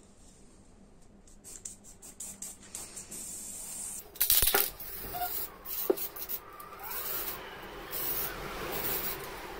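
Aerosol spray can spraying onto a wooden hammer handle in several short hissing bursts from about four seconds in, with a couple of sharp knocks among them.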